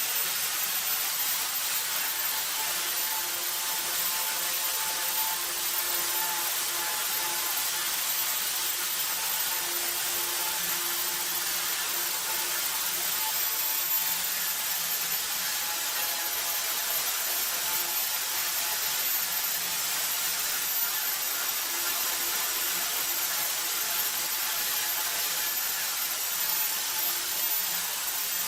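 A power tool running steadily throughout: a continuous hissing noise with faint hum tones that come and go.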